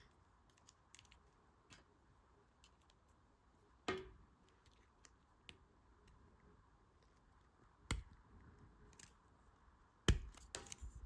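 Faint clicks and light taps of plastic action-figure parts and accessories being handled, with three sharper knocks about four, eight and ten seconds in.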